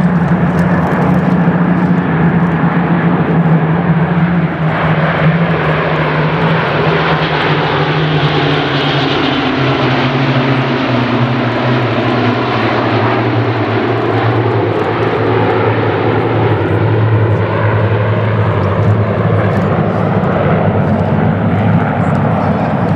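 A mixed formation of Red Arrows BAE Hawk jets and Merlin-engined Spitfires and Hurricanes flying past together: a steady drone of piston engines and jet noise. The engine note drops in pitch about halfway through as the formation passes.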